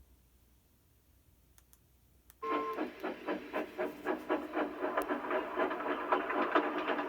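Steam locomotive chuffing steadily along the track with rail clatter, starting suddenly about two and a half seconds in after near silence, with a short whistle toot as it begins.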